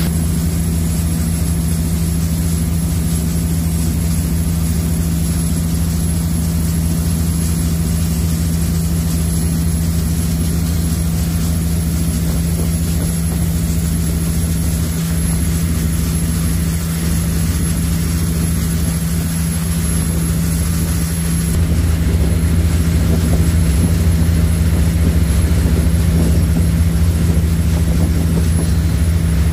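High-speed passenger ferry's engines running steadily underway, a constant low hum with an even rushing noise over it. The low hum gets somewhat louder about 21 seconds in.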